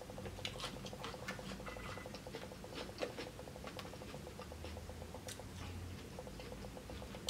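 Quiet chewing of steak: scattered small wet mouth clicks and smacks.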